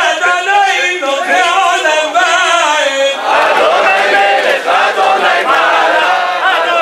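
Crowd of men singing together; about three seconds in, more voices join and the singing becomes fuller.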